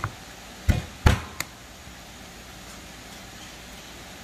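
Kitchen knife chopping down through a piece of fried chicken onto a wooden cutting board: two heavy knocks close together about a second in, then a lighter tap.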